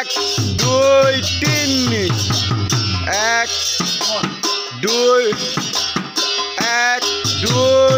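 Music with a drum beat and a melody that swoops up and down in short phrases, about one a second.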